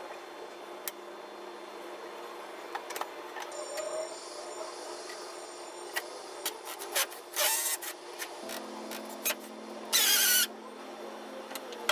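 Hand work on a wooden shoe rack as its back panel is taken off: scattered small knocks and clicks, with two short, loud scraping bursts, one about halfway through and one near the end.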